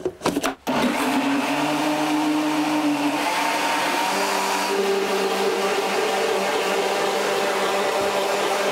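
A few clicks and knocks as the blender lid is pressed on, then the countertop blender's motor starts and runs steadily, puréeing strawberry guavas with sugar into juice. Its hum shifts higher about three seconds in.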